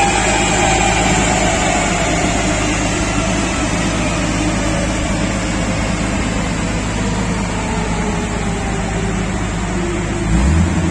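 Nissan SUV on a chassis dynamometer, its engine, drivetrain and the dyno rollers spinning down: a steady low rumble with a whine that slowly falls in pitch. Near the end comes a brief louder low surge.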